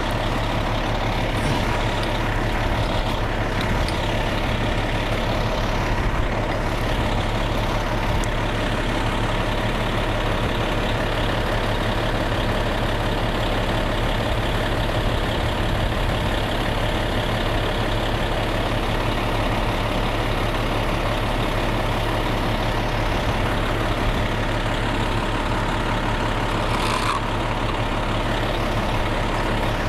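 Large truck engine, most likely the fire engine on scene, idling steadily, with a brief higher sound about 27 seconds in.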